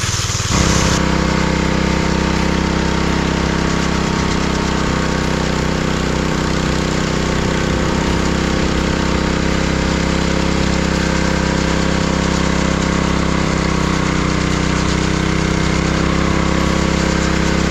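Small gasoline engine of a concrete power trowel running steadily under load while its blades polish a fresh slab; it gets louder about half a second in.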